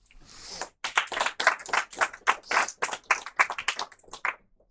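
A small audience clapping: a quick irregular patter of many hands that builds up over the first second and dies away just before the end.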